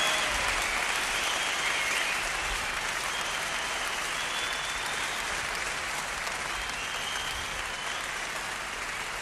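Concert audience applauding after the song, with a few high whistles over the clapping. The applause slowly dies away.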